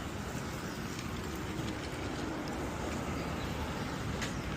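Steady outdoor street noise heard while walking: a low rumble under an even hiss, with a faint click about four seconds in.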